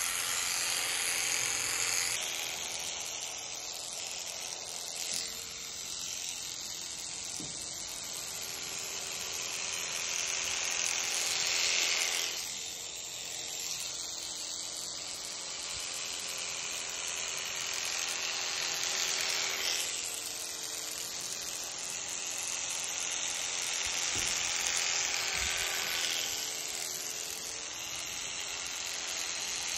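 Electric livestock shearing handpiece running steadily as its blades cut through llama fleece. The high hiss of the cutting swells every several seconds.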